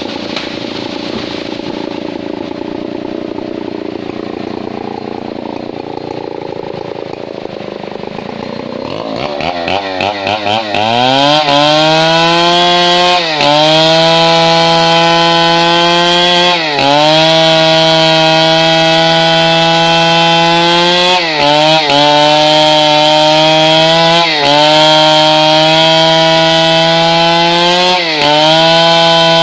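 Stihl 070 two-stroke chainsaw running slowly and unevenly, then revving up to full throttle about ten seconds in. It holds a steady high pitch while sawing through mahogany, with brief dips in speed every few seconds.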